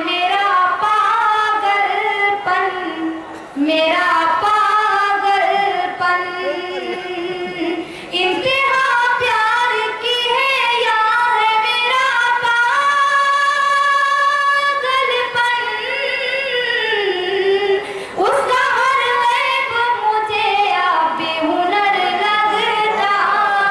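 A woman sings a ghazal solo into a microphone. She holds long, wavering notes and breaks only briefly for breath.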